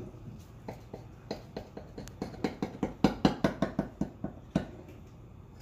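Chef's knife knocking against the bottom of a cast-iron skillet in quick repeated downward strokes as it cuts through baked raisin bread pudding. The knocks come about four or five a second and are loudest around the middle.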